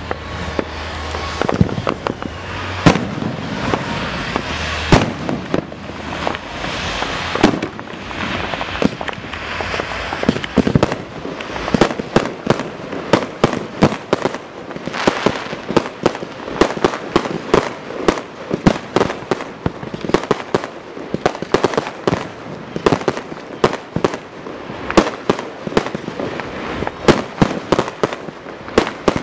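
Aerial fireworks display: shells bursting in a series of sharp bangs, growing into a rapid barrage of several bangs a second about halfway through.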